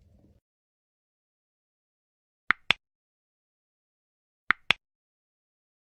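Dead silence broken twice by a sharp double click. The two clicks in each pair fall about a fifth of a second apart, and the pairs come about two seconds apart.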